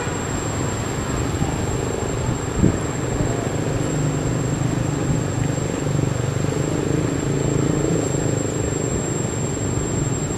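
A motor engine running steadily, its low hum swelling over the middle few seconds, with a soft knock or two near the start.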